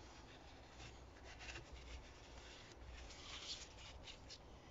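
Faint, intermittent rubbing and rustling of a cloth rag wiped around the engine's open oil filler neck.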